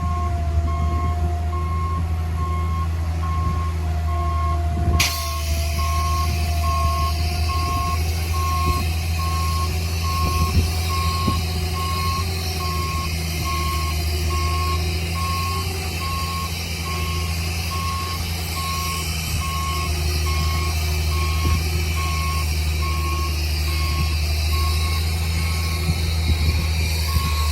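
Reversing alarm on a heavy construction machine, beeping at an even pace, over the steady low running of its diesel engine.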